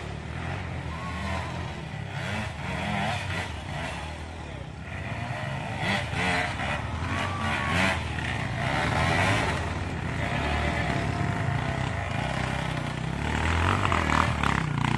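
Off-road dirt bike engines running and revving as the bikes climb a grassy slope, louder near the end.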